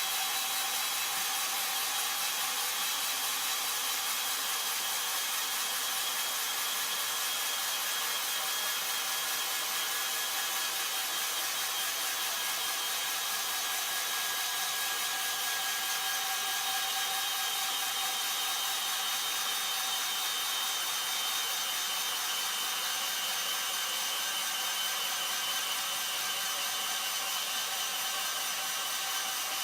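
Cordless drill motor running continuously with a steady whine that drifts slightly lower in pitch.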